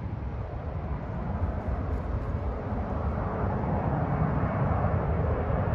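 Jet airliner descending on approach, a steady engine noise that grows gradually louder as it comes nearer.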